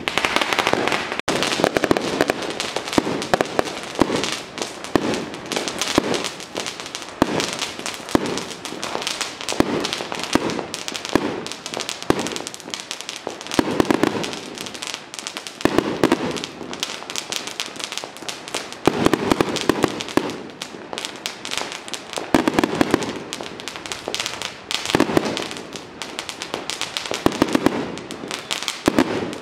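Strings of firecrackers going off in a rapid, unbroken crackle of bangs, swelling and easing in waves every couple of seconds.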